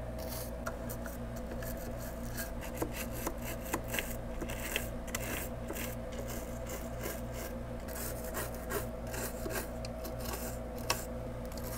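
Toothbrush scrubbing a circuit board with isopropyl alcohol: quick, irregular bristle scratching, over a steady low hum.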